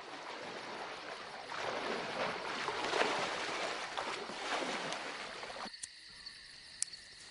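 Lake water splashing and sloshing in surges as an elephant wades through it. A little past two-thirds of the way in, this cuts off suddenly to a steady high chirring of insects.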